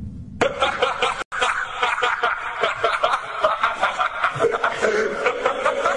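Nightcore (sped-up, pitched-up) song passage of rapid repeated laughter, "ha ha ha", coming in about half a second in after a brief break, with a momentary dropout just after a second.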